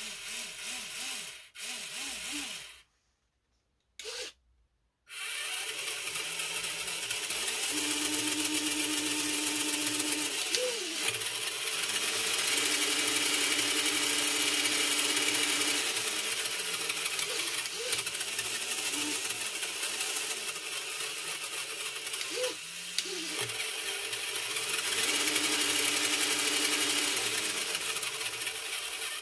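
Electric drive motor and scale gearbox of an RC Fiat 500F model spinning a lifted wheel in second gear: a steady mechanical whirring with a whine that rises and falls as the throttle is worked, held level a few times. A few short whirs come before a brief pause near the start.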